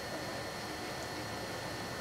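Steady background hiss with two faint, constant high-pitched whines running through it.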